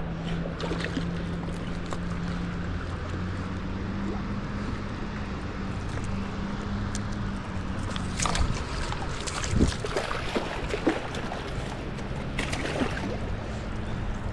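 A steady low motor drone that shifts pitch slightly a couple of times, over a wash of moving water. From about eight seconds in, a scatter of short clicks and knocks as fish on a rope stringer are handled at the water's edge.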